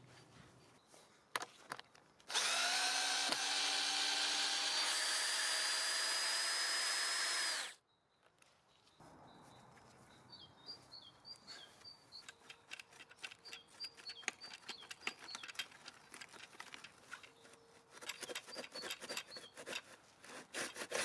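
Cordless drill spinning steadily for about five seconds, its whine rising slightly as it spins up, then stopping abruptly. Near the end, a run of light scraping knocks as a wooden fence post is worked in its metal ground bracket.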